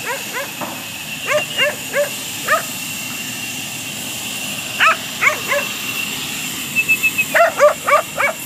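A dog barking in short groups of two to four barks, then a quick run of about seven barks near the end.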